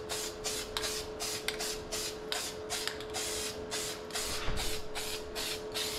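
Aerosol spray can of primer hissing in quick short bursts, about three to four a second, laying down a light first coat. A faint steady hum runs underneath.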